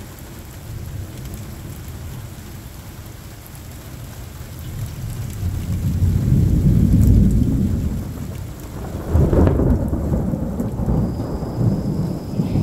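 Steady rain falling during a thunderstorm, with rolling thunder. A deep rumble swells from about four seconds in and peaks around seven seconds, then a sharper clap about nine seconds in rumbles on.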